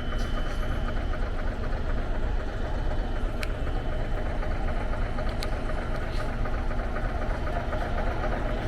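Steady engine noise and general street din, with engines running at low revs and a few sharp clicks.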